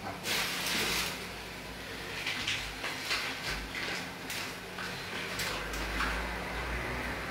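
A bag of flour being handled and rustled, with a few short clicks and knocks against the counter.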